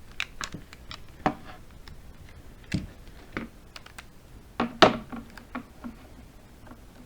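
Rubber bands being stretched and snapped around a smartphone whose new screen is being glued down. The handling makes a string of irregular clicks and snaps, the loudest about five seconds in.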